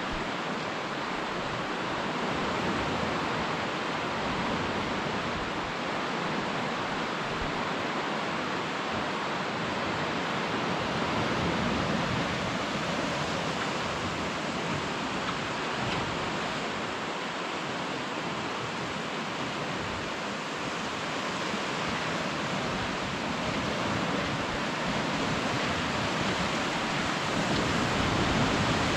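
Steady rushing of the Hokitika River's rapids in the gorge below, an even hiss of fast-moving water with no change throughout.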